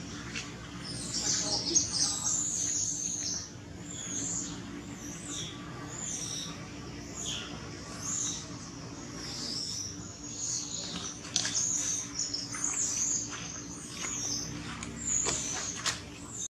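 Many short, high chirping and squeaking animal calls, some gliding in pitch, going on throughout over a low steady hum.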